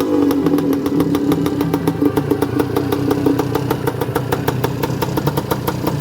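1986 Suzuki LT250R's two-stroke single-cylinder engine, freshly rebuilt, idling steadily with a rapid even firing beat after the revs drop back right at the start.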